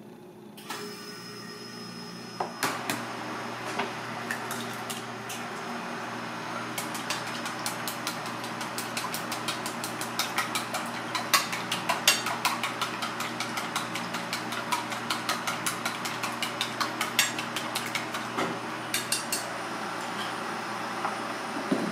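Chopsticks beating raw egg in a stainless steel bowl: a rapid run of light clicks against the metal, thinning out near the end, over a steady kitchen hum.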